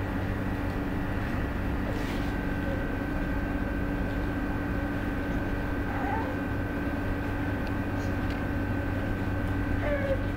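Steady mechanical hum with a thin constant whine entering about two seconds in, and a few faint short cooing sounds around the middle and near the end.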